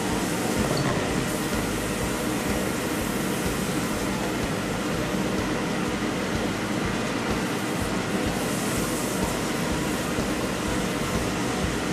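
Cut potatoes deep-frying in hot vegetable oil: a steady sizzle.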